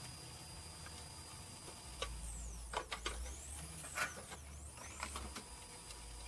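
3D printer's stepper motors whining, their pitch gliding up and down as they move, with several sharp clicks and a low rumble in the middle stretch, over a steady faint hum.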